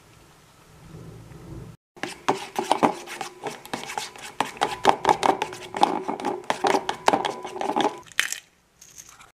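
A metal spoon beating egg yolks and grated parmesan in a stainless steel bowl: quick clinks and scrapes against the bowl, several a second, with the bowl ringing, starting about two seconds in and stopping near the end.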